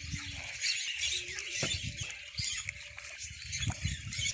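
Many caged birds chirping and squeaking together in a dense chorus, with irregular low thumps underneath.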